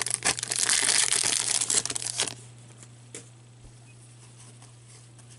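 Foil wrapper of an Upper Deck Series 2 hockey card pack crinkling and tearing as it is opened by hand. The crinkling stops a little over two seconds in, leaving a steady low hum.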